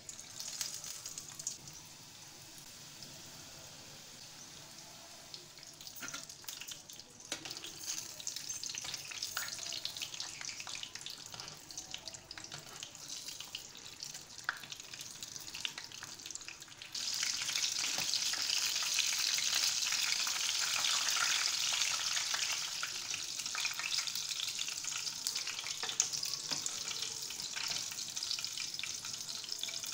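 Samosas deep-frying in hot oil in a metal karahi: a steady crackling sizzle that becomes suddenly louder about halfway through.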